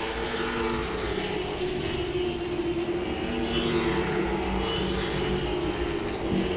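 Late model stock cars' V8 engines running steadily at race speed around the track, heard as one continuous engine drone.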